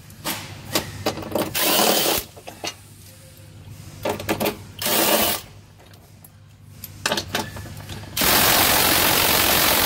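Cordless impact driver running a socket on 5/8-inch bumper bolts, loosening them: a few short bursts of hammering with metal clinks between them, then a longer run of about three seconds near the end.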